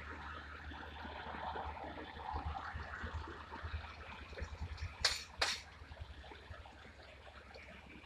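Faint, steady outdoor background noise with an uneven low rumble, broken by two sharp knocks about half a second apart some five seconds in.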